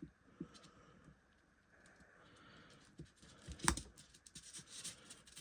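Small clicks and light taps of tiny model-locomotive chassis parts being handled and pressed into place, with one sharper click about two thirds of the way through.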